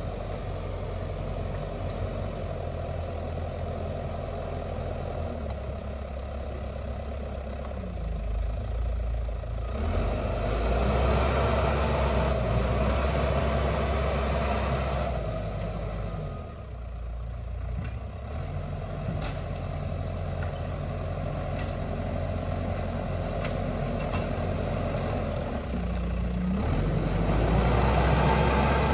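Diesel engine of heavy construction machinery running steadily, speeding up about a third of the way in, easing off briefly around the middle, then picking up again near the end, as it would under changing load.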